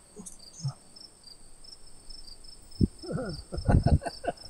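Crickets chirping steadily, a few short chirps a second. About three seconds in, a man's voice cuts in with a string of short, broken vocal sounds, louder than the crickets.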